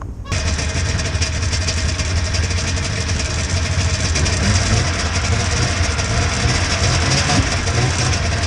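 Plow truck's engine running with a steady low drone and a constant hiss of road noise, cutting in about a third of a second in.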